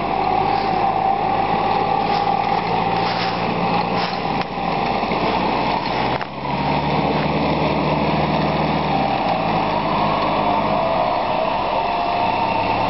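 Four-wheel-drive SUV's engine running under load while the vehicle is stuck in a muddy rut. The engine note drops about six seconds in and rises again about three seconds later, with a wavering whine on top.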